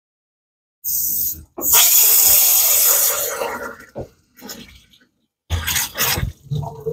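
Garden hose spray nozzle squeezed in spurts, blasting water into an engine's thermostat outlet to flush the clogged cooling passages. A short hissing burst comes about a second in, then a longer spray of about two seconds, then several shorter spurts near the end.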